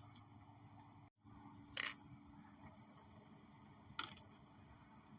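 Two brief, sharp clicks about two seconds apart over faint room tone, from food being dished into dog bowls.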